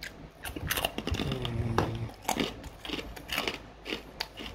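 A person chewing a crispy dried vegetable chip in the mouth: a run of irregular crunches.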